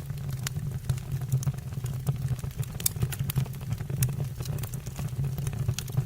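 Wood fire burning in a fireplace: a steady low rumble under irregular sharp crackles and pops from the burning logs.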